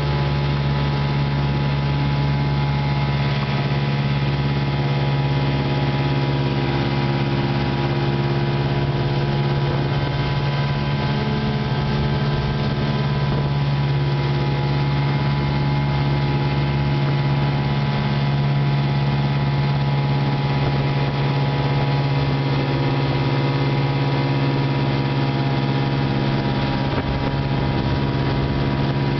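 Vikhr-25 outboard motor, a two-cylinder two-stroke, running at a steady speed without let-up, heard from aboard the boat it drives.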